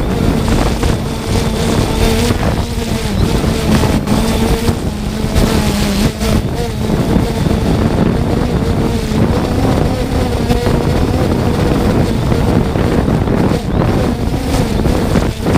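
3DR Solo quadcopter's motors and propellers humming, the pitch wavering slightly as they work against gusts, under heavy wind buffeting on the microphone.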